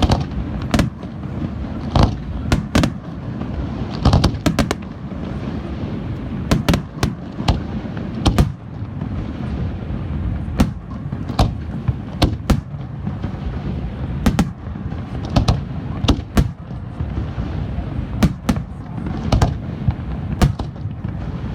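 Aerial fireworks show: a continuous barrage of shell bursts, dozens of sharp bangs, often several a second, over a steady low rumble.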